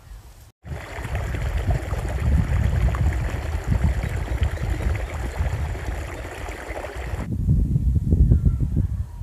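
Water rushing and gurgling through a gap in a sandbag dam in a field irrigation channel, starting just under a second in and cutting off about seven seconds in.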